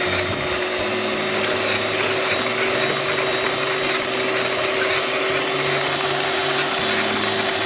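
Electric hand mixer running steadily at one speed, its beaters whipping cream in a bowl, with a steady motor hum and whirring.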